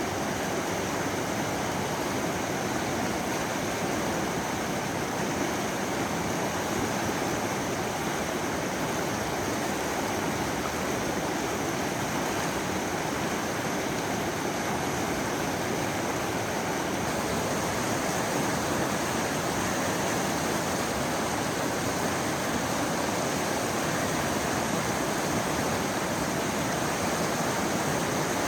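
Salmon River, a mountain river running fast over rocks: a steady rush of water, brightening slightly a little past halfway.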